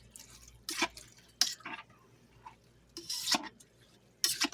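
A cooking utensil scraping and knocking against a pot of soup in four or five short, separate strokes, about a second apart.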